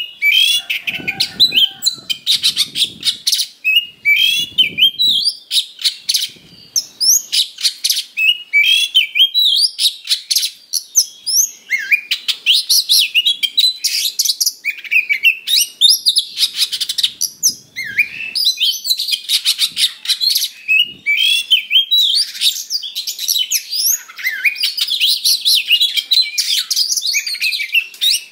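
Oriental magpie-robin (kacer) singing in its aggressive fighting-mode song: a fast, unbroken stream of chirps, rising and falling whistled sweeps and harsh mimicked notes.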